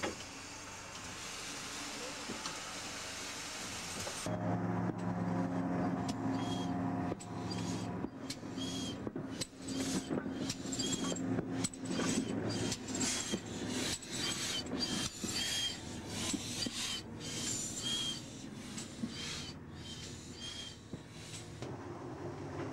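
Steam locomotive: an even steam hiss, then from about four seconds in the engine moving slowly, with regular exhaust beats about one a second over a low steady drone.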